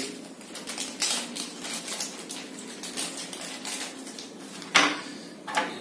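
Small clear plastic bag crinkling and crackling as it is handled and opened, a dense run of small sharp crackles with one louder one near the end.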